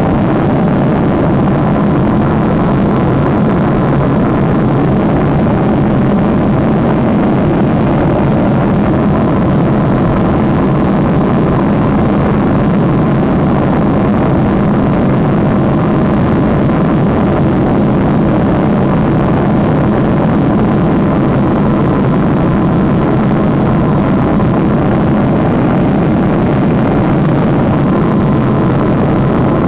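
Steady cabin drone of a Boeing 737 jet airliner in level flight above the clouds: engine noise and air rushing past the fuselage, heard from a window seat, with a faint steady high tone running through it.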